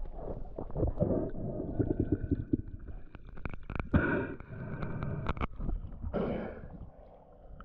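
Muffled underwater sounds of a spearfisher hauling a speared fish in along its line: a run of knocks and clicks from handling gear and fish, with a louder knock about four seconds in. About six seconds in, a rush of water noise as he breaks the surface.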